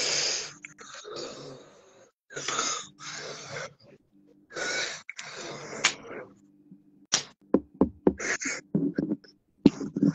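A person beatboxing over a phone call: breathy hissing bursts, then a quick run of sharp clicks and pops in the last few seconds.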